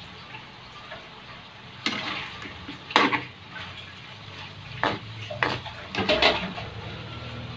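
Metal ladle stirring cubed pork in a metal wok, scraping and clanking against the pan several times from about two seconds in, over a steady low hiss.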